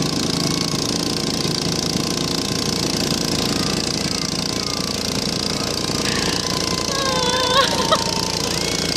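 Small stock garden pulling tractor's engine idling steadily while hooked to the pulling sled, ready to pull. A voice comes in over it in the last few seconds.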